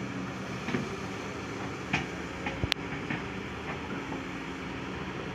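Diesel engine of a Kobelco crawler excavator running steadily as it digs earth, with a few short knocks and clatters from the bucket and soil, the sharpest a little before the middle.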